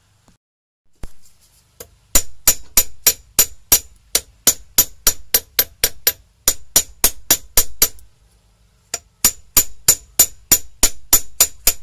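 Steel hammer rapidly tapping a bent steel welding rod against an upturned hammer head used as an anvil, about four strikes a second, each with a bright metallic ring. It is flattening the rod's bend to stiffen the hook. The tapping pauses for about a second near the middle, then resumes.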